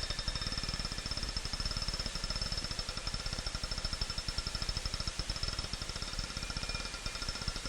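A steady, rapid mechanical rattle, about a dozen pulses a second, with a faint high whine running over it.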